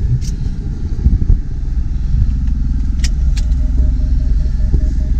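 Jeep Wrangler JL running, heard from inside the cabin as a steady low rumble. About three seconds in come two sharp clicks, then a rapid, evenly repeated beeping, typical of the reverse parking-sensor warning as the Jeep backs toward the trailer.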